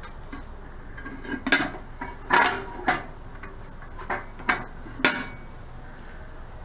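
A metal mailbox being handled: about half a dozen sharp metallic clicks and clanks spread over a few seconds as the lid is opened and shut.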